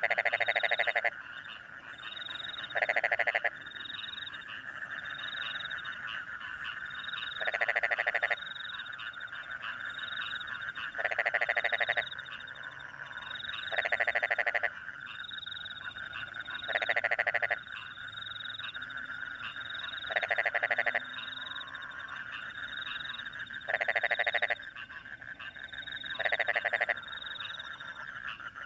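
Frogs calling in a rice field after rain: a loud, rapidly pulsed croak about a second long repeats roughly every three seconds, over a steady night chorus of frogs and crickets with regular high chirps.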